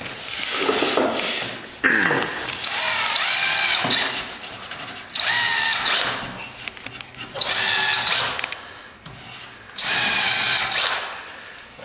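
Cordless drill running in about five bursts of a second or two each, whining as it bores or drives screws into the top of a wooden box.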